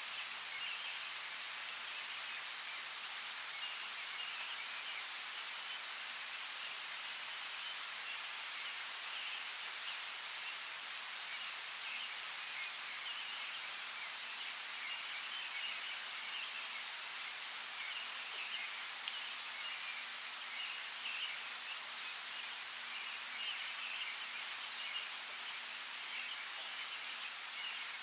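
Steady rain falling, with individual drops ticking sharply now and then, and faint bird chirping mixed in throughout.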